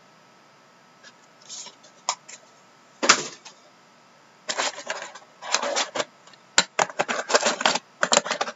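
Trading cards and their packaging being handled: a few faint ticks, a sharp click about three seconds in, then a dense run of clicking and rustling through the second half.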